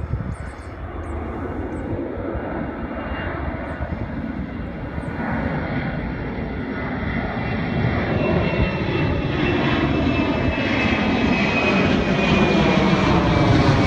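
Boeing 767-300ER jet engines at takeoff power, growing steadily louder as the airliner comes closer, with a faint whine sliding slowly lower in pitch.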